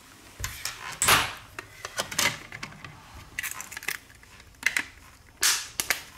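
Handling sounds of a smartphone and its back cover being fitted: an irregular series of taps, clicks and short rubbing scrapes as the cover is set on the frame and pressed down by hand.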